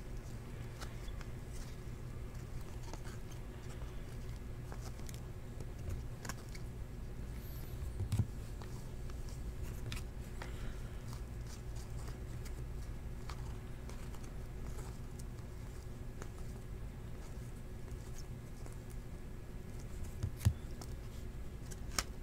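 Baseball trading cards being flipped and slid through a stack by hand: a few faint, scattered clicks and slides over a steady low hum.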